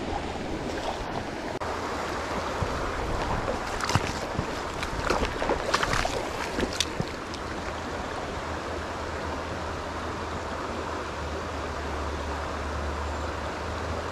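Steady rush of a small river's flowing water, with a few brief sharp sounds between about four and seven seconds in.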